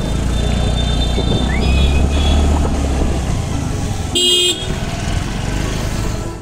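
Road traffic with a steady low engine and road rumble. Fainter horn tones sound about two seconds in. A short, loud honk from a vehicle horn comes about four seconds in.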